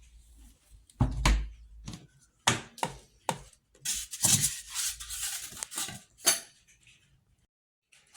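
A few sharp knocks and clatters with a stretch of rustling in between, the sound of objects being handled and set down.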